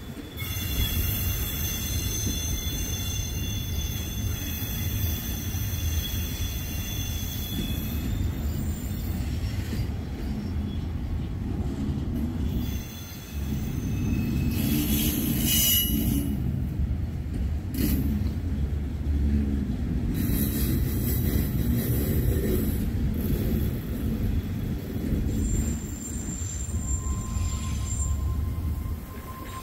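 Freight train of autorack cars rolling past, a steady low rumble of steel wheels on the rails. High-pitched metal squeals come and go over it: for the first several seconds, briefly about halfway through, and again near the end.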